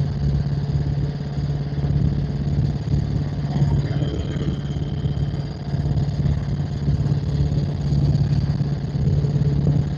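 Helicopter in flight, a steady drone of engine and rotor with an even low hum throughout; no shots are fired.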